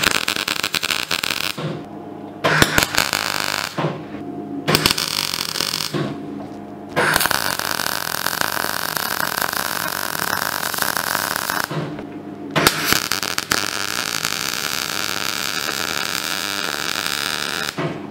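MIG welder crackling as it welds a steel exhaust downpipe: three short bursts of about a second and a half each, then two longer runs of about five seconds with a brief break between them.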